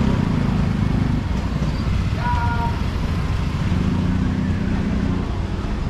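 Busy street noise: a steady hum of motor traffic with a low murmur of voices, and a brief high-pitched tone about two seconds in.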